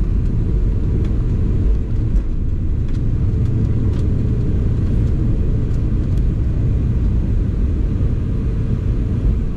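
Cabin noise of a Boeing 717-200 during takeoff, rolling down the runway and lifting off: a steady low rumble from its rear-mounted Rolls-Royce BR715 turbofans at takeoff thrust, heard from a forward window seat, with a few faint clicks and rattles.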